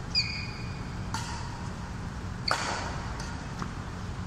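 Badminton rally: shuttlecock struck back and forth with rackets, three sharp smacks a little over a second apart, the last the loudest, each ringing on in the hall.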